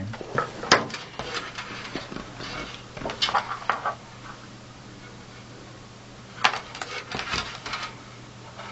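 Computer cables and small plastic connectors being handled: scattered clicks, taps and rustles in a few short clusters, over a faint steady hum.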